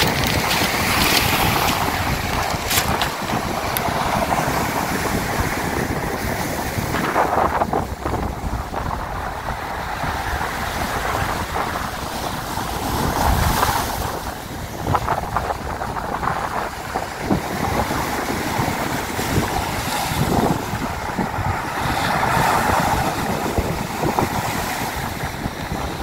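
Stormy sea surf breaking in repeated surges onto a pebble beach and washing back over the stones. Wind buffets the phone's microphone.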